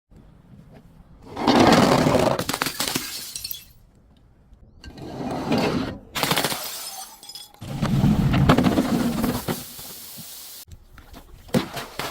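Glass bottles being crushed and breaking: crackling, crunching bouts of shattering glass, three or four of them, the loudest about two seconds in, then a few small clinks near the end.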